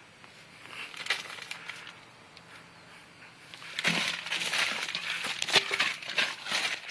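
A plastic bag crinkling and rustling as a cat with the bag stuck over its head scrambles about, with scattered clicks and scuffs. Faint at first, much louder and busier from about four seconds in.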